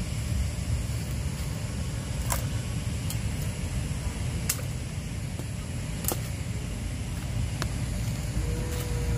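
A steady low rumbling noise throughout, with a few sharp clicks scattered through it and a short steady tone near the end.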